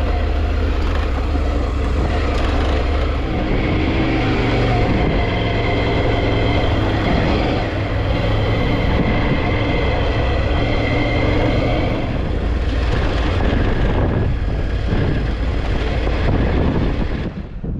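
Triumph Tiger 900 Rally Pro's three-cylinder engine running while the motorcycle is ridden, its note shifting several times with throttle and gear changes over rushing road noise. The sound drops away near the end.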